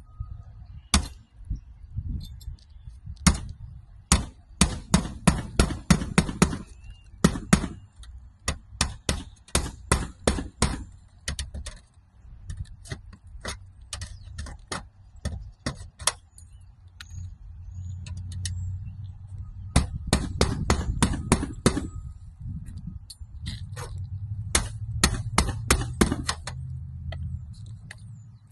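Hammer blows in quick runs of about four strikes a second, with pauses between the runs, as in nailing during a roof box vent repair. A low rumble sits under the strikes.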